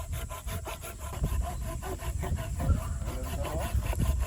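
Hand saw cutting through a piece of firewood, in rapid, even back-and-forth strokes.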